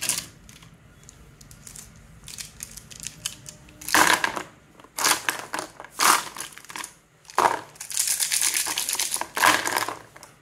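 Plastic sketch pens being set down and pushed around on a paper sheet, clicking against each other and rustling the paper: a few small clicks at first, then several louder bursts of rustle and clatter from about four seconds in.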